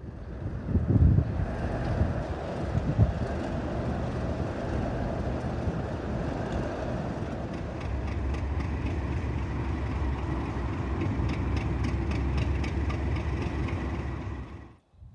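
Class 37 diesel locomotives' English Electric V12 engines running steadily at low power, with a couple of sharp knocks about one and three seconds in and faint clicking near the end.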